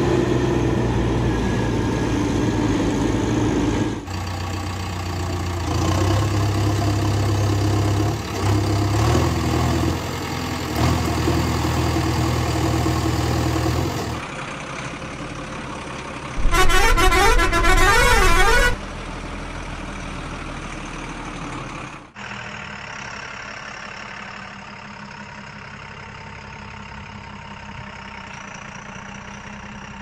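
Heavy truck engine sounds running in several segments that cut abruptly from one to the next. A loud truck horn with a wavering pitch blares for about two seconds just past the middle.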